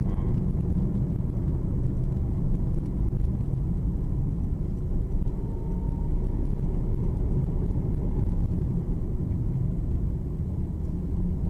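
Steady low rumble of a car driving: engine and road noise, even throughout, with no sharp knocks or impacts.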